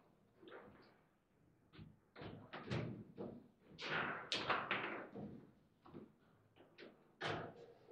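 Table football game in play: irregular sharp knocks and clacks of the ball striking the player figures and table walls and the rods being slammed, louder hits around the middle and again near the end.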